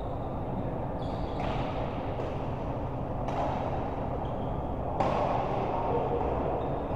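Steady background din of a large hall, a low murmur without distinct strikes.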